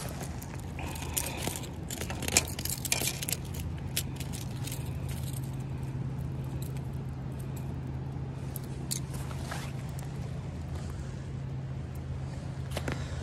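Handling noise from a brown trout being unhooked in a wooden landing net: scrapes, clicks and rustling, thickest over the first three seconds or so with a few more later, over a steady low hum.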